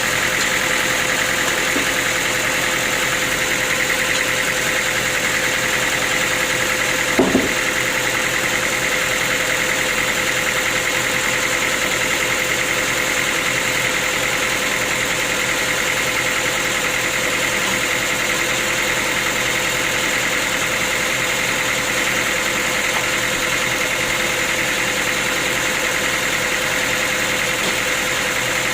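Sawmill machinery running steadily, an even mechanical hum with a high whine. A short knock comes about seven seconds in.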